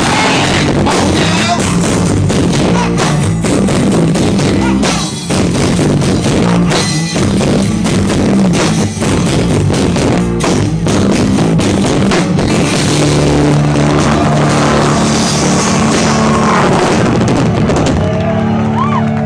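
Live unplugged rock band playing: strummed acoustic guitar, a second guitar, drums and singing. Over the last several seconds the band holds a long sustained chord.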